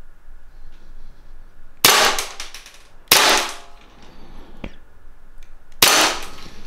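Airsoft pistol firing three shots, each a sharp crack that dies away over about half a second, with the second shot about a second after the first and the third some three seconds later.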